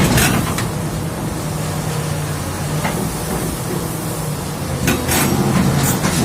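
Heavy diesel machinery running with a steady low hum, with sharp metallic clanks near the start, about halfway through and again near the end.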